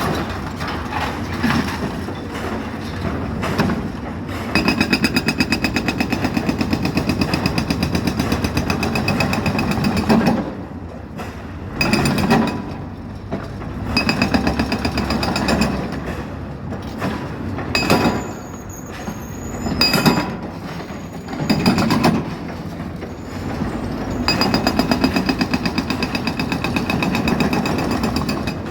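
Excavator-mounted hydraulic breaker hammering in rapid, even strokes, in long runs broken by short bursts and pauses.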